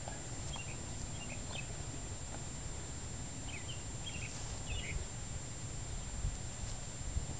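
Nova Scotia Duck Tolling Retriever puppy chewing on a freshly killed squirrel, with a few soft crunches and thumps in the second half over a steady low outdoor rumble. Small birds chirp in short, falling notes near the start and again about halfway through.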